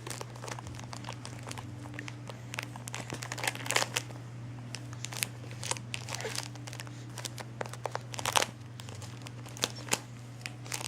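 Irregular crinkling and crackling of something crinkly being handled, over a steady low hum.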